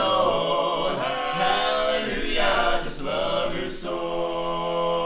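Male barbershop quartet (tenor, lead, baritone and bass) singing a cappella in close four-part harmony, settling into a long held chord about four seconds in.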